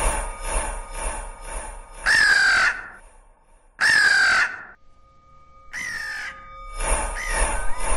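Crow cawing three times, long caws spaced about a second and a half apart, each dropping slightly in pitch at its end.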